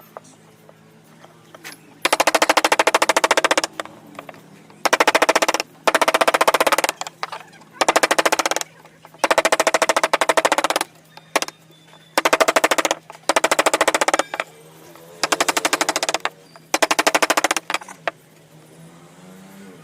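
A carving tool striking wood in fast, rattling bursts of about one to two seconds each, with short pauses between them.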